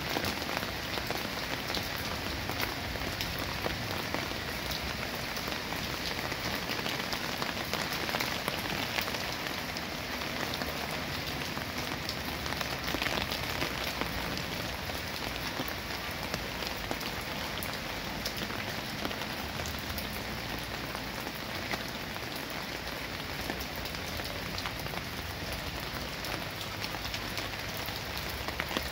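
Steady rain falling on garden foliage: a constant hiss dotted with the small ticks of individual drops hitting leaves and petals.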